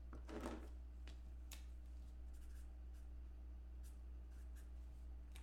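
Marker pen writing on paper: faint scratchy strokes with a few light clicks, over a steady low hum.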